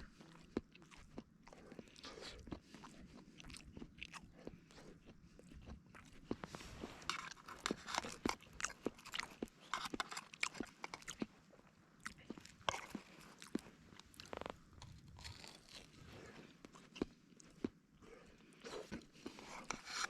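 A person eating close to the microphone: irregular crunching and chewing with many small, sharp crackles.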